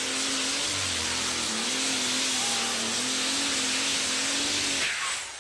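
Super stock pulling tractor's turbocharged diesel engine running flat out as it drags the weight-transfer sled, a loud roar with a wavering engine note. About five seconds in the sound drops away sharply as the throttle comes off at the end of the pull.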